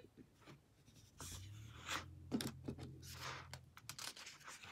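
Faint paper rustles and small ticks as a hand takes hold of a paperback picture book's page to turn it, with a faint low hum underneath for a couple of seconds.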